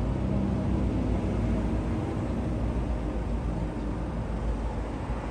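6000 lb electric ATV winch running under heavy load, slowly hauling a small car up by its nose, with a steady low drone.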